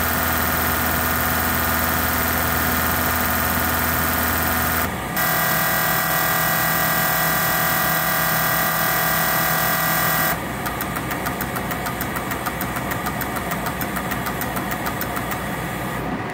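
Fuel injector test bench firing four Keihin injectors from a Honda S2000: a steady mechanical buzz with a whining tone and hiss of the spray, which drops out briefly about five seconds in. About ten seconds in the buzz stops and gives way to a quieter, rapid even ticking.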